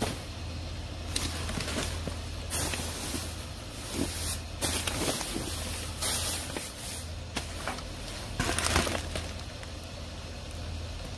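Plastic trash bags rustling and crinkling in repeated bursts as they are grabbed and shifted inside a dumpster, over a steady low hum.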